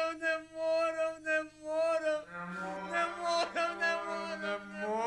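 A man's voice wailing in long, held, almost sung notes; about two seconds in, a second, lower voice joins with a steady drone.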